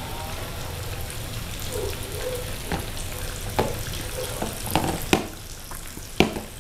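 Flour-coated snakehead fish pieces deep-frying in hot oil in a wok, a steady sizzle. Sharp pops and crackles come in the second half, the loudest a little after five and six seconds in.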